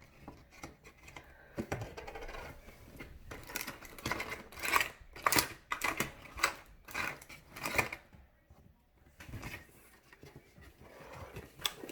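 Paper and cardboard crinkling, scraping and tapping as a handmade paper vending machine is worked by hand, with a run of quick clicks and rustles in the middle that die down after about eight seconds.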